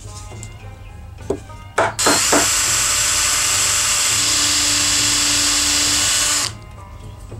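Power drill boring a hole into a pine block, running steadily for about four seconds and then stopping abruptly. A few knocks just before it starts.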